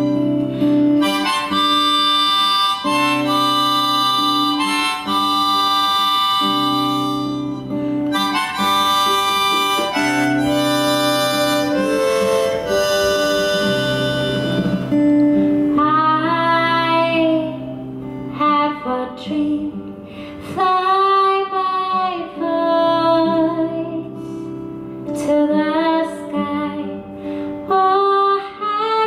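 Live harmonica playing a sustained chordal melody over strummed acoustic guitar and a bass line. Near the end a woman's singing voice takes over from the harmonica.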